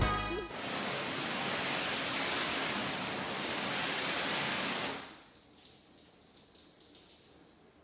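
Water spray from a garden hose nozzle hissing onto a car's hood, steady, then shut off about five seconds in, leaving it nearly silent.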